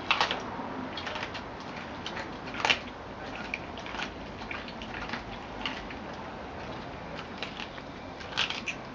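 Collie chewing a whole raw rabbit, its teeth crunching through meat and bone in irregular clicks and cracks, with the loudest crunches just after the start, a little before the middle and near the end.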